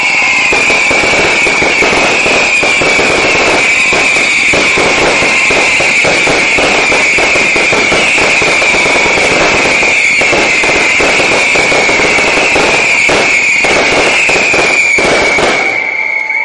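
Aerial fireworks going off in a dense, continuous barrage of crackling and bangs, with a high whistling tone held over it, cutting off suddenly near the end.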